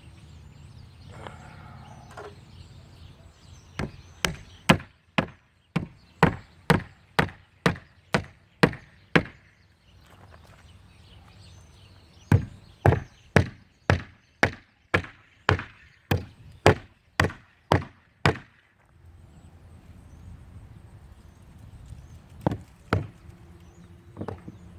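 Hammer blows fixing a fitted piece into place on a shed wall: two runs of steady strikes, about two a second, each lasting several seconds, then a couple more blows near the end.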